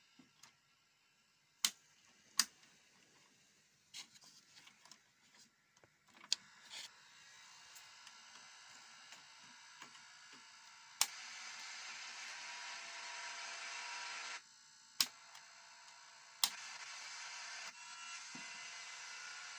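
Casio Casiotone MT-100 electronic keyboard making a steady, buzzy electronic drone of many held tones, with sharp clicks of its keys or buttons. The drone gets louder at one click, breaks off briefly, and comes back at another.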